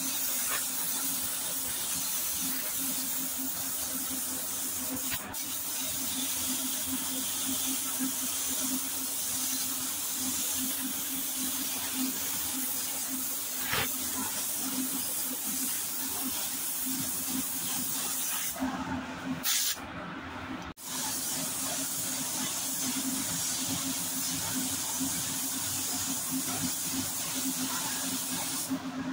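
Gravity-feed paint spray gun hissing steadily as compressed air atomises paint onto a car's rear quarter panel, with a steady low hum underneath. The hiss breaks off briefly about two-thirds of the way through, then resumes.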